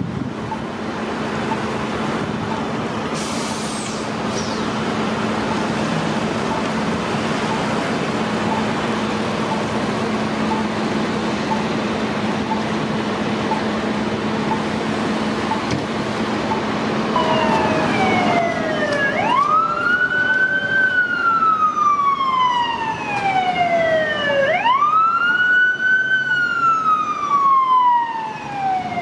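Traffic and idling-engine noise with a steady low hum, then about two-thirds of the way in an emergency siren starts wailing and becomes the loudest sound: each cycle rises quickly and falls slowly, about every five seconds.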